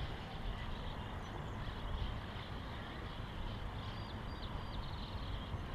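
Steady outdoor background noise with a low rumble, and a few faint high chirps about four seconds in.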